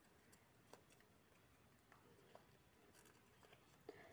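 Near silence, with a few faint crinkles and ticks from a small folded paper slip being unfolded by hand.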